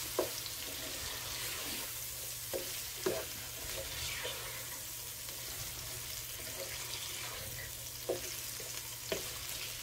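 Chicken thigh pieces with chopped onion, garlic and ginger sizzling in oil in a nonstick frying pan, a steady hiss. A few light clicks come from the slotted spatula stirring them against the pan.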